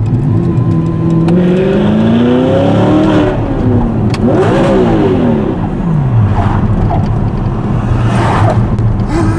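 Audi R8's V8 engine through an Armytrix valved exhaust, revving under acceleration, heard from inside the cabin. The note climbs for a couple of seconds, dips about three seconds in, rises again briefly, then falls away and settles to a steady lower drone.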